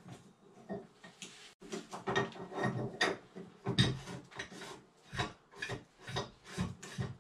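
Brass tub drain fitting rubbing and scraping against the tub's drain opening as it is worked into place by hand: a string of short rasping rubs, about two a second.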